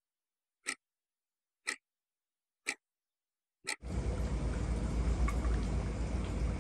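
Clock-tick sound effect over dead silence: four sharp ticks, one a second. Just under four seconds in, steady outdoor night ambience with a deep rumble cuts in.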